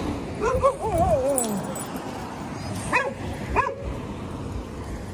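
A dog whining in a wavering, up-and-down pitch, then two short, high yips about half a second apart.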